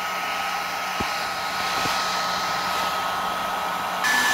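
Hand-held hair dryer running steadily, a rush of air with a high whine over it. Near the end the whine jumps higher and the sound gets louder.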